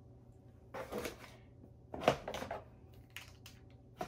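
Small cosmetic products being handled and set down: two bursts of rustling clatter about one and two seconds in, the second the louder, then a few light clicks near the end.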